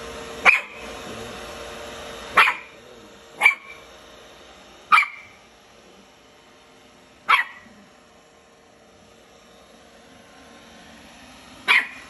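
Scottish terrier puppy giving six single, sharp barks, spaced one to four seconds apart, at a robot vacuum it is seeing for the first time.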